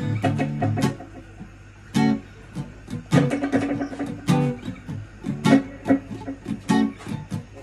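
Instrumental music led by guitar: sustained chords drop away about a second in, leaving short, separate strummed chords with gaps between them.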